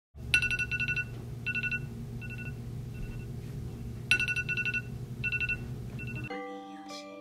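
Phone alarm ringtone: repeating groups of quick electronic beeps over a steady low buzz, the pattern coming round about every four seconds. It cuts off suddenly about six seconds in, as chime-like music notes begin.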